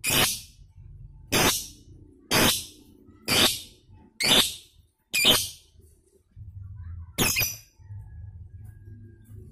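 A caged lovebird calling: seven shrill, screeching calls about a second apart, the last one after a longer pause.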